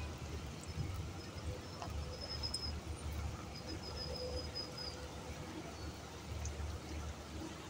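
Low, steady rumble of slow-moving vehicle traffic in a jam, with a few faint high-pitched chirps over it.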